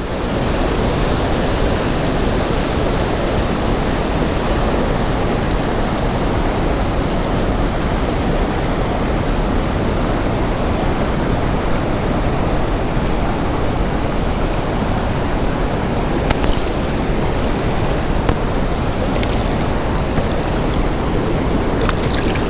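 Steady rush of fast-flowing river water, loud and unbroken, with a few faint clicks near the end.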